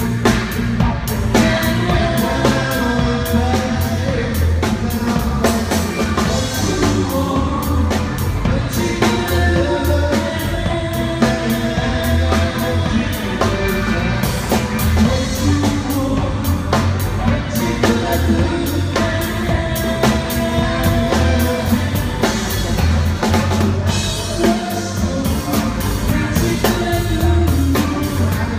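Live rock band playing a song, with the drum kit prominent in a steady beat under electric guitars.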